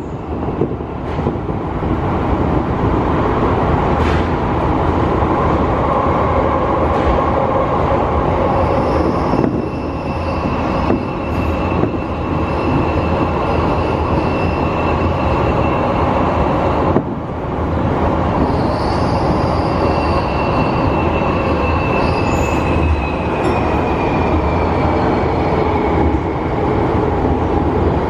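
Tokyo Metro Hibiya Line subway train running through a tunnel, heard from inside the front of the train: a steady, loud rumble of wheels on rail. A thin high wheel squeal comes in about a third of the way through, breaks off briefly, then returns and slides slightly lower before fading near the end.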